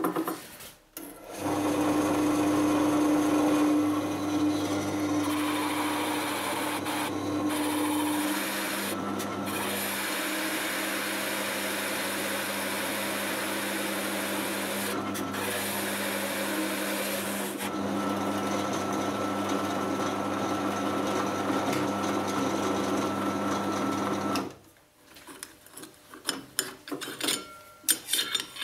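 Drill press driving a hole saw through a wooden board: the motor's steady hum under the rasp of the saw teeth cutting wood. The hum drops in pitch about eight seconds in, and the cutting stops suddenly near the end. Light scraping and clicking follow as two screwdrivers pry the wooden disc out of the hole saw.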